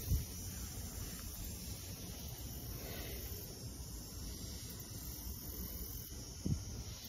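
Wet microfiber cloth rubbing over a car window, a faint hiss over a steady low rumble, with two soft knocks, one at the start and one near the end.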